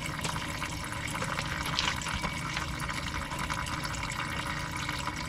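Engine coolant draining from the Mk2 Audi TT's radiator through the disconnected radiator hose, a steady stream of liquid splashing.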